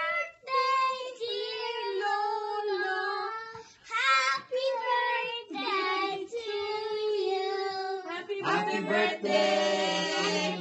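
A family group of young children and women singing together, holding each note for about half a second to a second, with the singing growing fuller and louder in the last two seconds.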